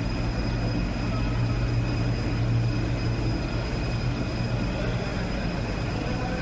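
Steady hum of a rubber extrusion and microwave vulcanization production line running, with a low drone and a thin, steady high whine over it.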